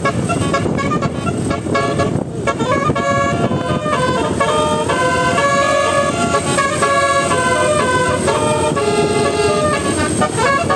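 Bus telolet horn, a set of air-horn trumpets, playing a melody of held notes that step up and down in pitch, over a steady noisy rumble.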